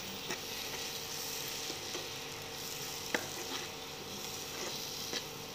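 Onions, tomatoes and ground spices sizzling in oil in a nonstick kadai while being stirred with a steel spoon, with a few sharp clicks as the spoon knocks the pan.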